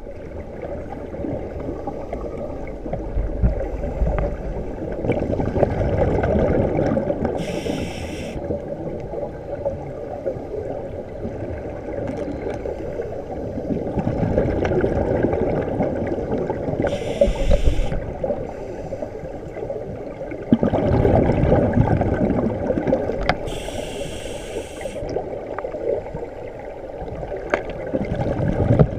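Scuba breathing through a regulator underwater: a hissing inhale three times, about every eight seconds, with the low bubbling rumble of exhaled air in between.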